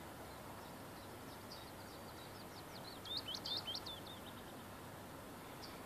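A songbird singing one quick phrase of high chirps, loudest about three seconds in, with a single short chirp near the end, over a faint steady outdoor background noise.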